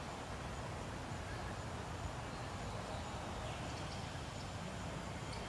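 Steady outdoor background noise, an even low rumble, with a few faint clicks toward the end.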